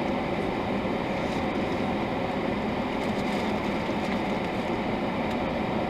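Steady, even running noise of a car, heard from inside its cabin while it sits parked.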